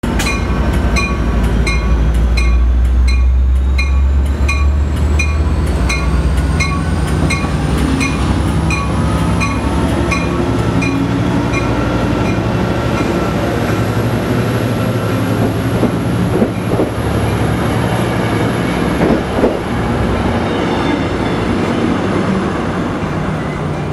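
Trinity Railway Express commuter train arriving at a platform, its EMD F59PH diesel locomotive running past close by with its bell ringing steadily for about the first ten seconds. The coaches then roll past with steady wheel noise, a thin high whine and a couple of sharp knocks near the end as the train slows.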